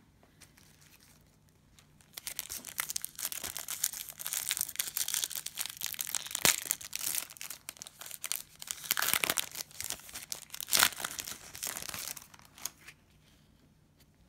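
Cellophane wrapper of a trading card cello pack crinkling and tearing as it is opened. The crackling starts about two seconds in and stops near the end.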